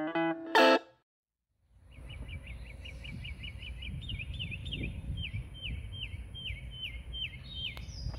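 Guitar music ends under a second in. Then wind rumbles on the microphone while a bird calls in a long run of short falling chirps, about three a second.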